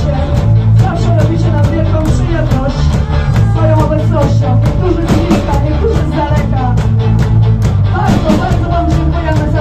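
Live punk rock band playing loud: a woman singing into a microphone over distorted electric guitars, bass and a fast, steady drumbeat.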